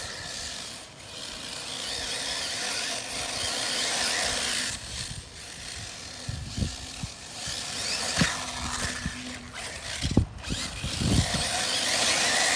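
Arrma Typhon 6S 1/8-scale RC buggy's brushless motor and drivetrain whirring as it drives across thick grass on a 4S LiPo, swelling and easing with the throttle several times. A few short low thumps come through in the second half.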